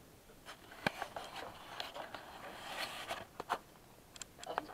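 Handling noise from a handheld camera being moved: rustling of clothing and fabric with a few sharp clicks, the loudest about a second in.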